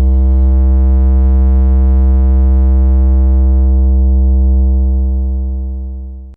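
A single long synthesized bass note with a very deep low end, held steady for several seconds. It fades a little near the end, then cuts off abruptly. It is a bass test sound for checking a sound system's low end.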